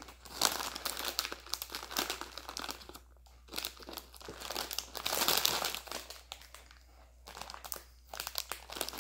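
Foil snack bag crinkling as a hand rummages in it for crackers and handles it open. It comes in spells with short lulls, and is loudest about halfway through.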